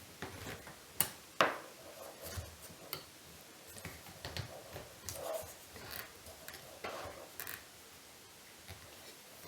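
Light clicks, taps and small knocks of carburetor parts and tools being handled at a workbench, irregular throughout, with two sharper clicks about a second in.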